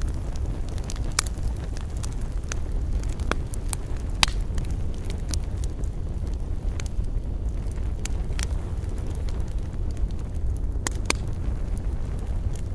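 Wood campfire crackling: sharp pops at irregular intervals over a steady low rumble.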